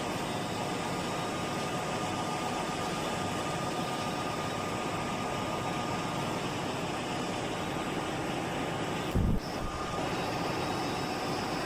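CNC machine tool running steadily, a constant mechanical hiss with a faint high whine. A brief low thud comes about nine seconds in.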